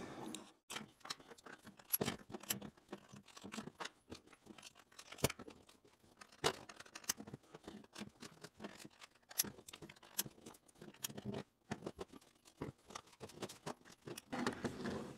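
Irregular small clicks and taps as thin bar magnets are slid into the slots of a 3D-printed plastic socket organizer and the printed pieces are handled on a table.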